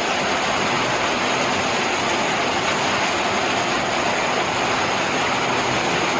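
Muddy floodwater rushing and churning in a steady, loud roar of water.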